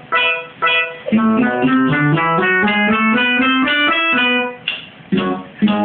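Instrumental music: a quick melody of short plucked, guitar-like notes over a lower bass line, with brief pauses between phrases.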